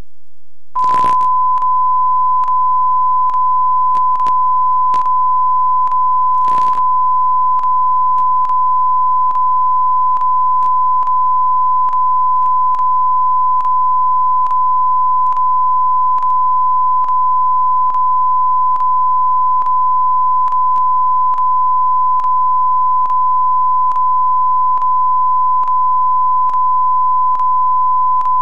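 Steady electronic test tone at a single unwavering pitch, switching on about a second in. Faint regular ticks come a little under twice a second, and two short bursts of static come as the tone starts and again about six seconds later.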